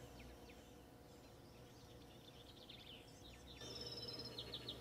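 Faint outdoor quiet with small birds chirping: short falling chirps, joined about three and a half seconds in by a thin, steady high trill.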